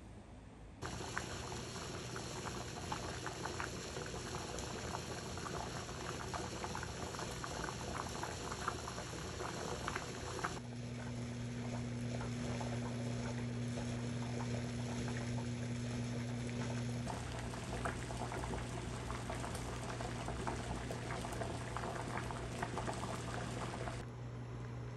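Food cooking on a stove: liquid bubbling and crackling steadily over a low steady hum, with the sound changing abruptly a few times as if cut between short clips.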